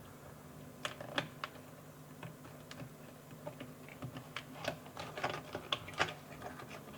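Small, irregular plastic clicks and taps as tight wire connectors are worked loose and unplugged from a radio transmitter's circuit board, over a faint steady hum.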